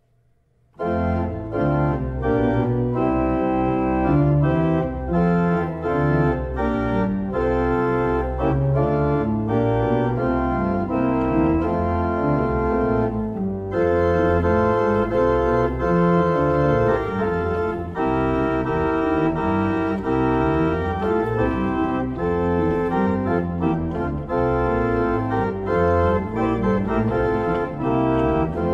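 Two-manual church organ playing a brisk piece, starting about a second in. Many notes change quickly over a moving bass line.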